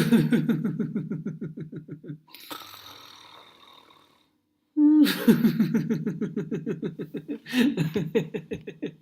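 A man doing the laughter-yoga 'snoring laughter' exercise: a rapid run of laughing 'ha-ha' pulses, then a fake snoring breath in about two and a half seconds in, and after a short pause a second long run of laughter.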